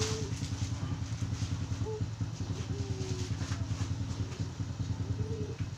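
An engine idling steadily, a low even throb with a fine rapid pulse. Short cooing calls of doves sound over it several times.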